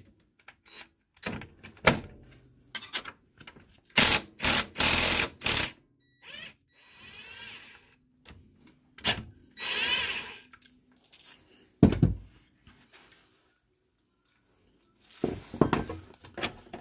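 Tools working the lower mounting bolt of an ATV's front shock absorber: scattered metal clinks and knocks as a wrench is fitted and turned. There is a cluster of four short, loud bursts about four seconds in and a sharp knock about twelve seconds in.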